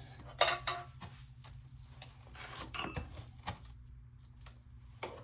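Scattered clicks and knocks of hand work freeing parts on a motorcycle's rear brake line, the sharpest about half a second in, with a brief clatter and metallic ring around three seconds in. A steady low hum runs underneath.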